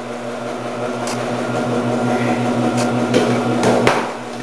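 Omcan HLC 300 commercial vegetable processor running steadily, its motor humming while potatoes are pushed through the slicing disc and dicing grid and cut into cubes. There is a sharp knock about four seconds in.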